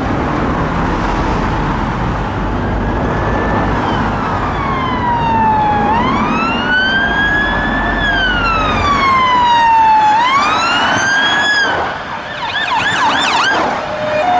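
Police car siren sounding a slow wail, its pitch rising and falling over a couple of seconds at a time, switching near the end to a fast yelp, over the noise of passing traffic.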